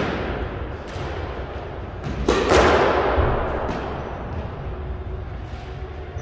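Sharp squash-ball knocks ringing around a squash court: a faint one about a second in, then one loud crack a little over two seconds in that echoes for over a second, and a smaller knock near four seconds, over a low steady hum.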